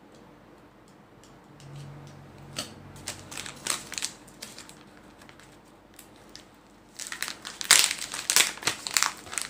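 Foil-and-plastic pouch of a small building-block kit crinkling as hands handle and open it: a few scattered crinkles about three seconds in, then loud continuous crinkling from about seven seconds on.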